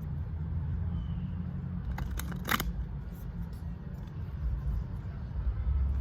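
Steady low outdoor rumble, with a few short sharp clicks about two seconds in.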